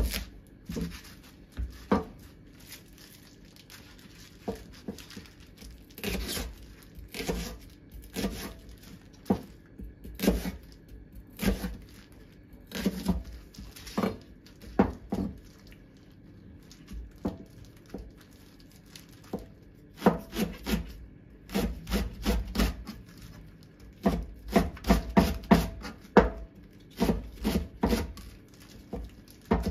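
Chef's knife slicing a long green onion (negi) into thin rings on a cutting board: each cut ends in a sharp tap of the blade on the board. The cuts come singly and spaced out at first, then in quick runs of rapid chopping over the last third.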